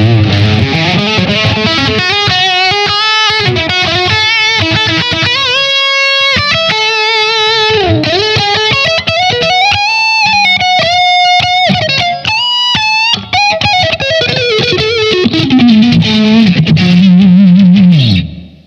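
Soloking MS-1 Custom 22 HSS electric guitar playing a lead line: quick note runs, bent notes and held notes with vibrato. Near the end the pitch falls sharply, and the playing stops abruptly.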